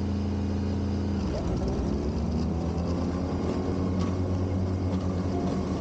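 The engine of a gardening machine running steadily, with a slight shift in pitch about a second in.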